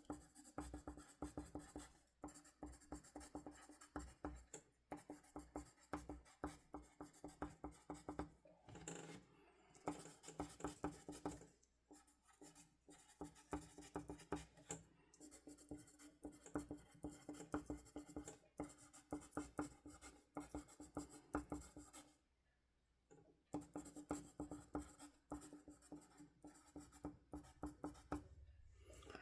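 Pen scratching on paper in runs of quick strokes with brief pauses between them, and one longer pause about three quarters of the way through.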